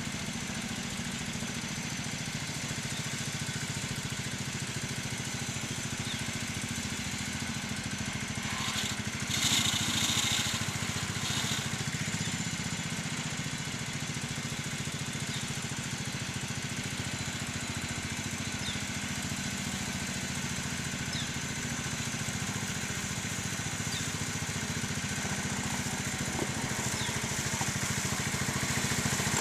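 A ride-on 7.5-inch-gauge diesel-switcher model locomotive running along its track, its motor giving a steady low hum. A brief louder hissing rush comes about ten seconds in.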